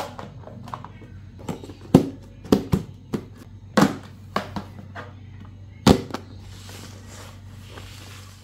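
Irregular sharp knocks and clatters of objects being handled and set down, over a steady low hum. The sound cuts off suddenly near the end.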